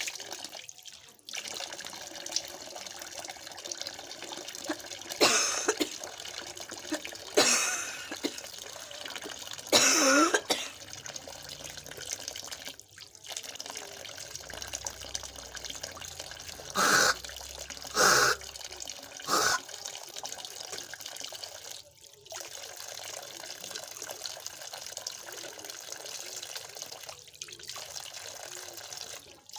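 A person coughing: three coughs about two seconds apart, then three shorter ones about a second apart, over a steady hiss like running water.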